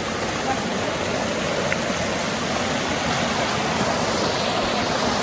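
Rushing river water: a steady, even rush of flowing water with no breaks.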